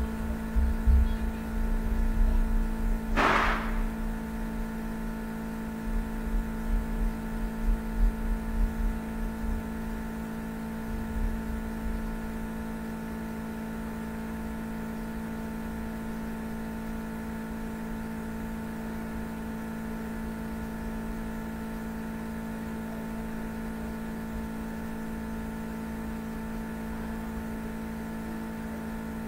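Steady electrical hum made of several constant tones, with uneven low rumbling through the first dozen seconds and one brief higher noise about three seconds in.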